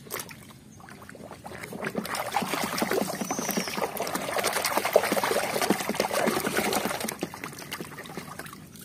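Hand splashing and swishing a toy airplane through a tub of muddy, sudsy water, a dense run of sloshing and splashing. It builds up about a second and a half in and dies down near the end.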